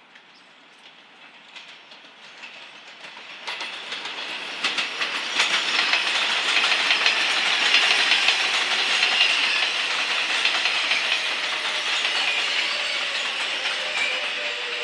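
New York City Subway 7 train of R188 cars approaching and running past on elevated track: a growing rush of wheel and rail noise with clicks over the rail joints, then a steady loud clatter. A low whine falls in pitch near the end.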